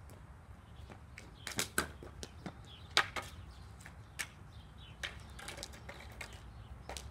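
Hockey stickhandling on a driveway shooting pad: irregular sharp clacks and taps of the stick blade against the puck and the pad. The loudest clack comes about three seconds in.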